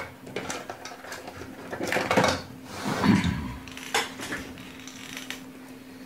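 Metal hand tools clinking and clattering as they are handled, a few separate clinks with the busiest cluster about two seconds in. A faint steady hum runs beneath.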